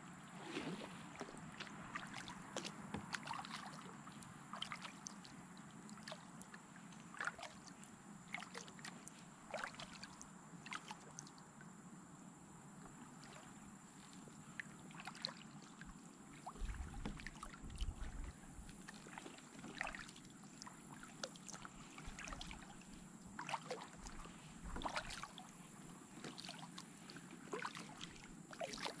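Kayak paddle strokes in calm water: the blades dip and drip with small splashes every second or two. A brief low rumble sounds about halfway through.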